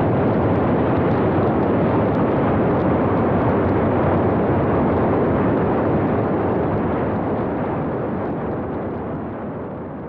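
Heavy wind rush on an FPV plane's onboard camera microphone as the plane comes in to land, a steady rumbling noise that slowly fades in the last few seconds as it slows down into the grass.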